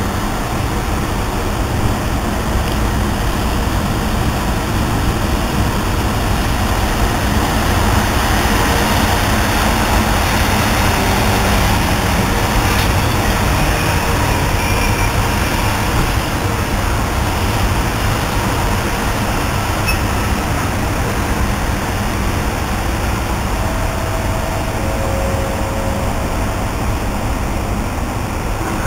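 Freight train rolling through the station on a far track: a steady, even rumble and rail noise from its wagons.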